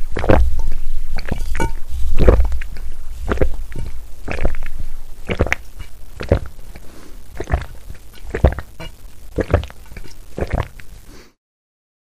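A person gulping down a drink in repeated swallows, about one a second, the first few heavier; the sound stops about 11 seconds in.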